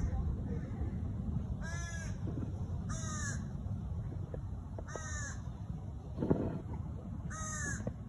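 A crow cawing: four short harsh calls, one to two seconds apart, over a steady low rumble. A single thump comes about six seconds in.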